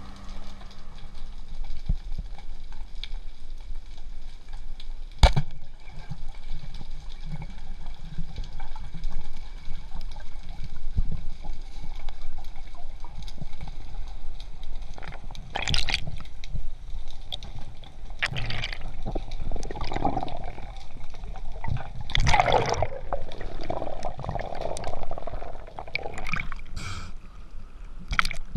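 Underwater water noise around a dive camera: a steady low rumble, a sharp click about five seconds in, and several louder bursts of bubbling in the second half.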